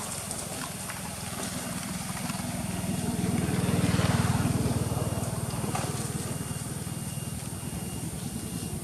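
Engine of a passing motor vehicle: a low, steady engine drone that grows louder to a peak about four seconds in, then slowly fades.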